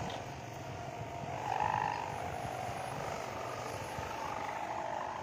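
Steady humming drone of sawangan, the bamboo hummers fitted to large kites flying overhead. The sound grows louder for a moment about a second and a half in.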